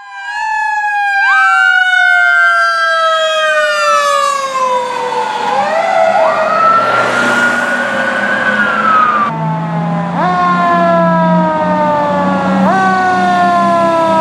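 Fire truck sirens wailing, several overlapping, their pitch sliding up and down in long sweeps. About nine seconds in the sound cuts abruptly to another siren whose sweeps rise quickly and fall slowly, repeating about every three seconds.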